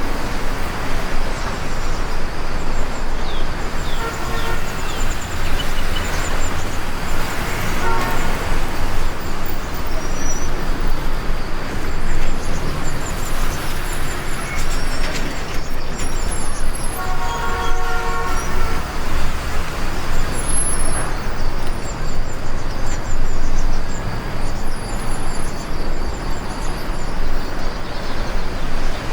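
Steady rushing noise of heavy rain mixed with road traffic, with a vehicle horn sounding briefly about two-thirds of the way through.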